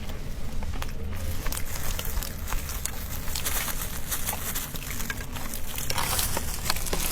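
A person chewing and biting dessert pastry close to the microphone: many small irregular clicks and crackles over a soft mouth noise, with busier bursts of chewing about three and a half seconds and six seconds in.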